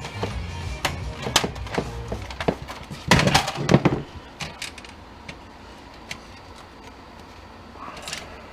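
Plastic parts of an HP Deskjet 950C inkjet printer being handled and pulled apart: a quick series of clicks and knocks, loudest about three seconds in. After that come only a few faint ticks.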